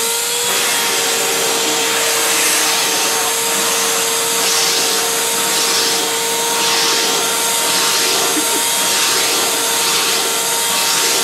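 Household vacuum cleaner running with a steady motor whine, its nozzle being run over a cat's fur. The hiss swells in a regular rhythm, less than a second apart, from a few seconds in.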